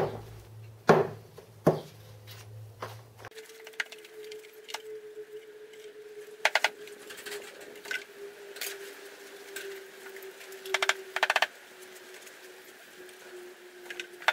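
Shakeout of a sand casting mould: three sharp knocks of a wooden moulding flask in the first two seconds, then scattered taps and crumbling of packed foundry sand. Quick rattling clinks come about six seconds in and again at about eleven seconds.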